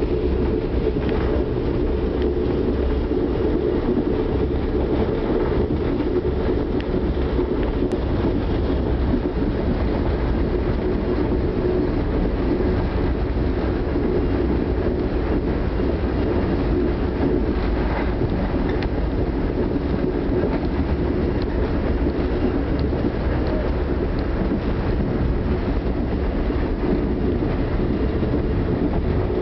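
Steady running noise of a moving Amtrak passenger train heard from inside the coach: a continuous low rumble of wheels on the rails and the car in motion.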